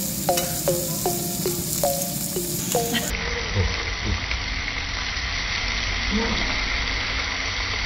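Short musical jingle of quick falling notes for about the first three seconds. Then pork belly sizzles steadily on a hot tabletop grill plate.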